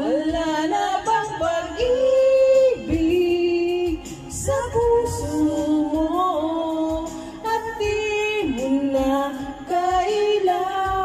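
A woman singing a slow Tagalog love ballad through a handheld microphone, holding long notes that slide in pitch, with short breaths between phrases.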